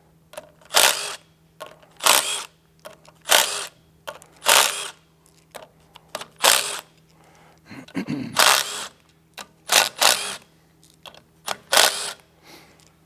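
Cordless drill with a half-inch socket running in short bursts, about nine times, as it spins bolts out of a gearbox cover, with small metal clicks between bursts.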